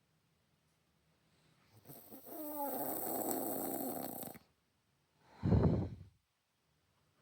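A woman snoring hard in deep sleep: a long noisy breath about two seconds in, then one short, loud, low snore about five and a half seconds in.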